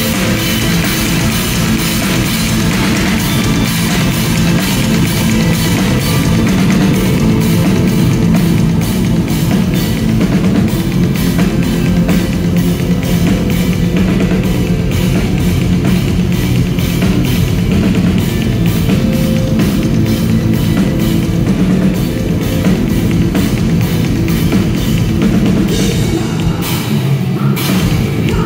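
Metal band playing live: heavy guitars over fast, steady drumming with a pounding bass drum. Near the end the bass and kick drop out briefly, then come back in.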